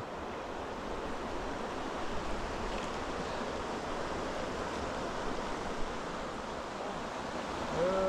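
Mountain stream water running, a steady even rush with no breaks.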